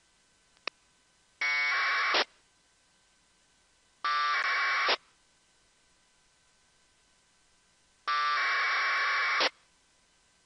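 Three APRS data packets on 144.390 MHz heard through an RTL-SDR receiver: harsh 1200-baud AFSK buzzes of about one second each, the last one a little longer. Each burst opens with a short steady tone before the data. A sharp click comes just before the first burst.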